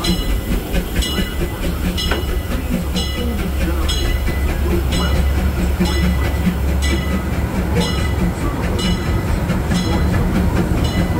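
Disneyland Railroad steam train running, heard from a car coupled behind the E.P. Ripley locomotive: a steady low rumble with a regular sharp, hissy beat about once a second.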